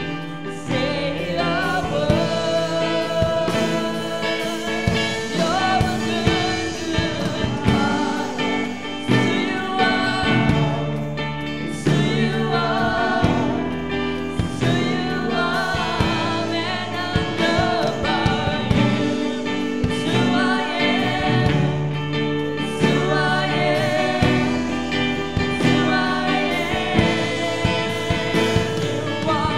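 Live praise band playing a gospel worship song: several singers singing together into microphones over guitars and drums.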